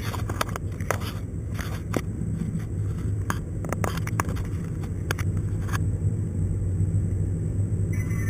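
Car cabin noise on a highway: a steady low drone of engine and tyres, with scattered light clicks and ticks through the first six seconds or so.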